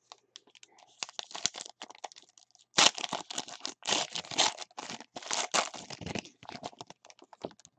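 Trading cards and their packaging being handled: a quick run of rustles, scrapes and small clicks, sparse at first and busiest from about three seconds in until about six and a half seconds in.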